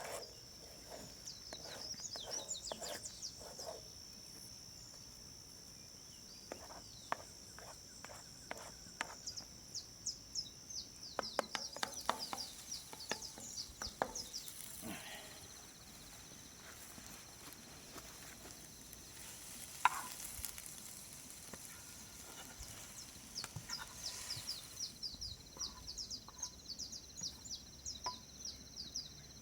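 A utensil clicking and scraping in a pan as food is stirred and cooked, with faint sizzling. Under it runs a steady high-pitched drone, with bursts of quick chirping off and on.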